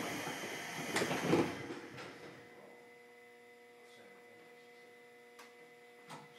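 Inside a JR Kyushu 103 series commuter car standing at a station: air hissing from the door engines, with two knocks about a second in as the doors shut. Then the car's electrical equipment hums steadily while the train stands, with a couple of faint knocks near the end.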